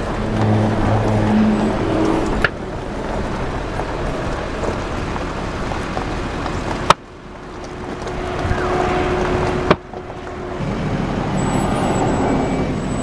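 Vehicle engines idling and running in stopped highway traffic, with an even outdoor noise behind them. The sound changes abruptly at a few edit cuts.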